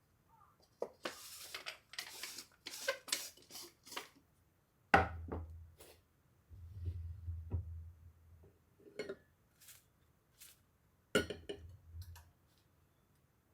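Coffee-making utensils and cups handled on a counter. A quick run of clicks and rattles comes first, then sharp knocks about five and eleven seconds in, with scattered clinks between.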